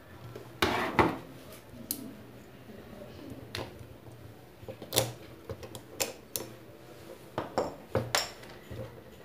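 Small tools and parts being handled on a wooden table as a heated hair brush is taken apart: a screwdriver and loose screws clinking and knocking, with clicks from the plastic housing. About ten short, sharp clicks and clinks, the loudest about a second in.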